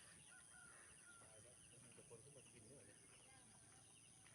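Faint outdoor ambience: distant voices chattering, with small birds chirping now and then.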